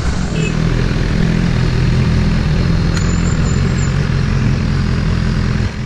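BMW motorcycle engine running at steady low revs while the bike rolls slowly along, an even engine hum under a steady rushing hiss.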